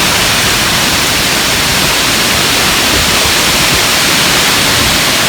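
Heavy rain and wind of a severe thunderstorm: a loud, steady hiss.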